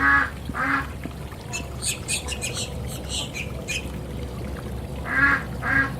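A bird giving two pairs of short, harsh squawks, with a run of quick high chirps between them.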